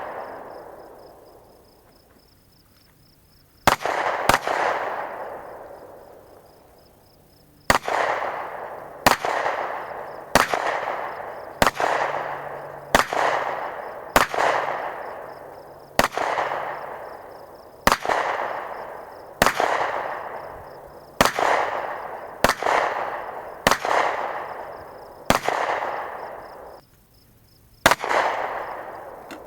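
Gunshots fired one at a time, about fifteen in all. After a pause of a few seconds, they come at a steady pace of roughly one every second and a half, and each is followed by a long echoing tail.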